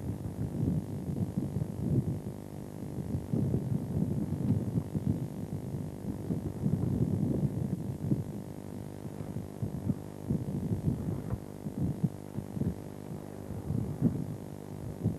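A fishing boat's engine running with a steady low hum, under irregular low thuds.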